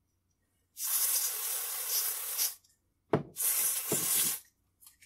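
Aerosol contact cleaner sprayed in two hissing blasts: a long one of about two seconds, then a short click and a second blast of about a second.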